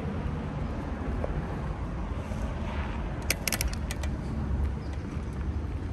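Wind rumble on the microphone and road noise from a bicycle ride, with a quick run of clicks about three and a half seconds in.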